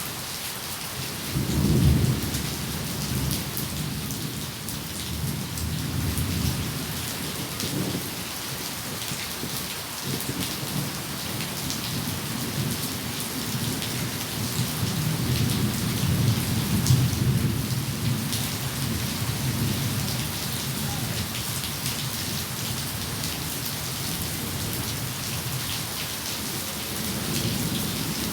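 Steady rain with thunder: a loud peal about two seconds in, then long low rolling rumbles that swell again through the middle and once more near the end.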